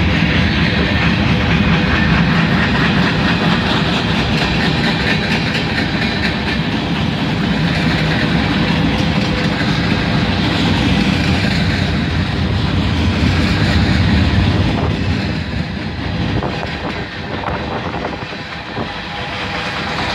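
Freight cars of a Union Pacific manifest train rolling past close by, a steady heavy rumble with wheels clattering over the rails. It eases off somewhat for a few seconds near the end.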